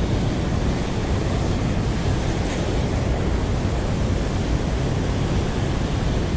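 River white water rushing and churning in a steady roar of noise, with some wind on the microphone.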